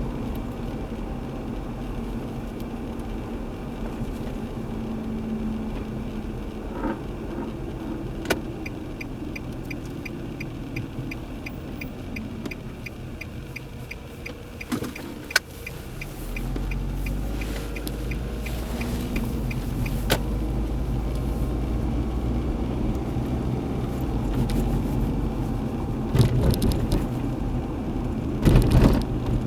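A 2003 Nissan Altima 2.5S running while the car is driven, a steady low engine and road rumble that grows louder about halfway through as the engine is put under more load. For about ten seconds in the first half a turn-signal relay ticks evenly, about twice a second.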